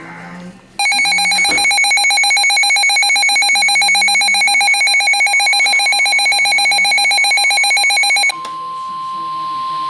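Emergency Alert System warning tones: a loud electronic alert with a very fast trill runs for about seven seconds, then gives way to one steady high beep that carries on.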